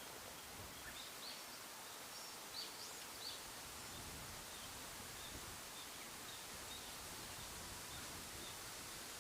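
Faint, high wild bird calls: a few short chirps in the first few seconds, then a run of short, evenly spaced notes about two a second, over a steady outdoor hiss.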